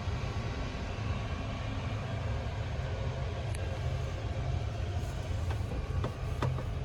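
Steady low rumble of an Airbus A350-900's cabin noise, with a few faint clicks near the end.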